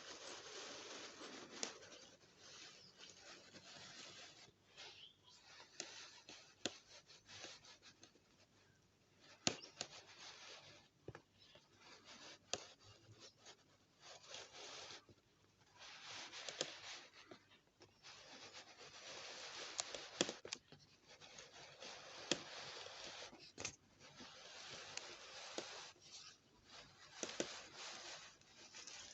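Faint rubbing and scraping in uneven stretches, broken by many light clicks and taps.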